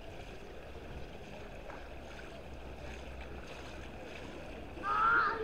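Steady outdoor wash of wind and pool water noise, with a low rumble throughout. Near the end a short, high-pitched voice calls out.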